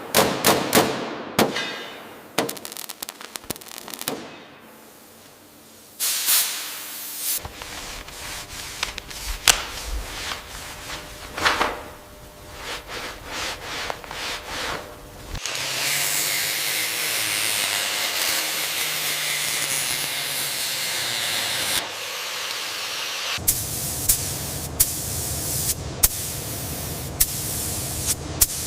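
Work on a metal hull: a string of sharp clicks and knocks, then from about halfway a steady hiss of spraying lasting several seconds, then steady noise with occasional sharp clicks.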